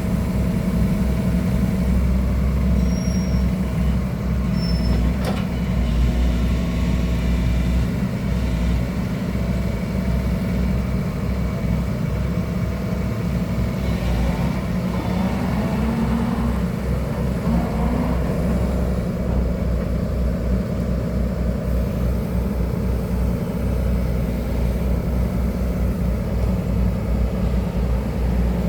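Excavator's diesel engine running steadily at a low, even pitch, with a few faint higher sounds about halfway through.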